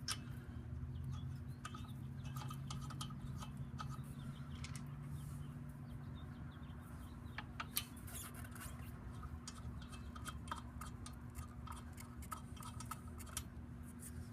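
Faint scattered light clicks and ticks over a steady low hum.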